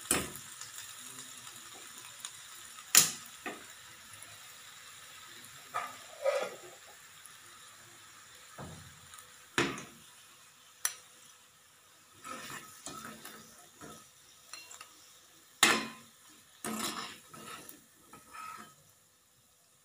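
Metal spoon scraping and knocking against a two-handled metal wok while stirring a fried ridge gourd peel temper, in scattered sharp clicks and scrapes. A faint sizzle fades away over the first half.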